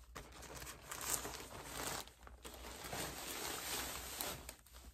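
Frosted plastic clothing bag crinkling and rustling as it is handled and opened, in two stretches with a short pause about two seconds in.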